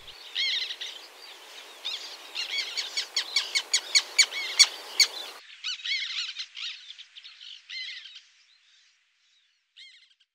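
Black terns calling: many short, repeated, arched calls, with a quick run of sharp, clipped notes in the middle. Around halfway the background hiss drops out and the calls fade away, with one last call near the end.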